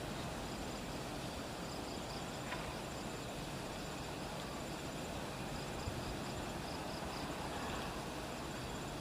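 Insects trilling in short, evenly repeated high pulses over a steady rushing background noise.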